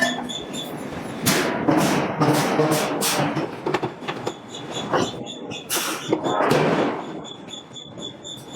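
Hydraulic forging hammer striking a steel billet: a run of heavy blows, some coming less than half a second apart, each with a short metallic ring.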